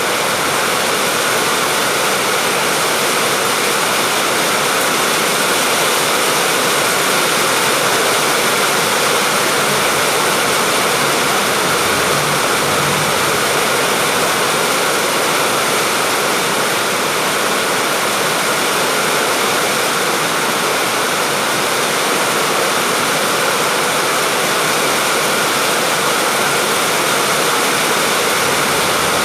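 Steady rain falling, a dense, even hiss that does not change.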